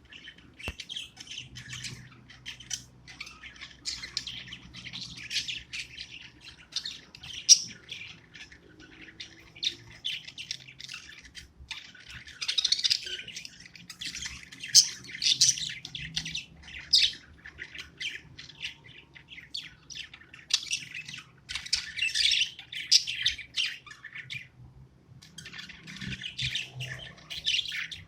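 Budgie chattering and chirping: a dense, busy run of short high calls and squawks, with a brief pause a little before the end.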